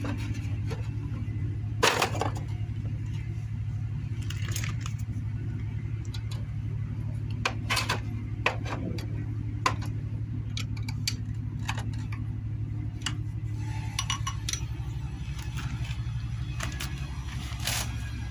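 Scattered metallic clinks and clicks of hand tools and engine parts being handled, over a steady low hum; the loudest clink comes about two seconds in.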